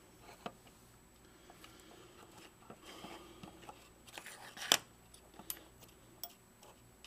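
Faint handling noise of small electronic parts and wire leads being moved about on a wooden tabletop, with a few light clicks and one sharper click a little past halfway.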